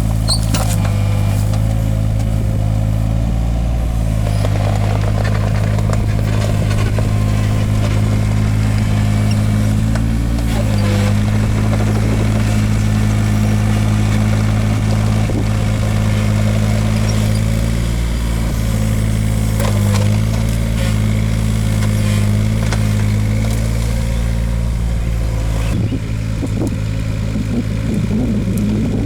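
Takeuchi TB016 mini excavator's diesel engine running steadily, its pitch dipping briefly a few times.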